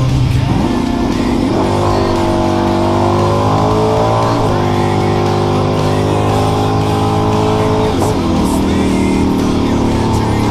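Race car engine under hard acceleration: the pitch climbs for a few seconds, steps abruptly about four seconds in as if shifting gear, holds, then falls away about eight seconds in. Rock music plays underneath.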